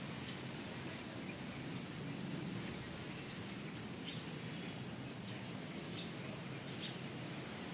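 Steady outdoor background noise, a low hum and hiss, with a few faint, short, high chirps in the second half, like small birds calling.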